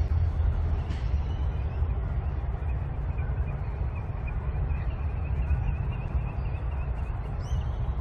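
Outdoor ambience: a steady low rumble with faint bird calls over it, a rapid trill through the middle and a short chirp near the end.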